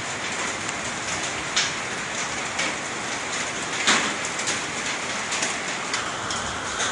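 Steady rain laden with volcanic mud and sand, pattering on surfaces, with scattered sharp ticks of drops and grit striking; the loudest knock comes about four seconds in.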